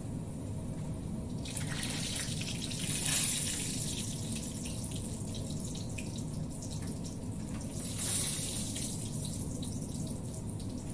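Hot oil sizzling as food is deep-fried and turned in the pan. The sizzle swells in two louder surges with small crackles, about two seconds in and again about eight seconds in. A steady low hum runs underneath.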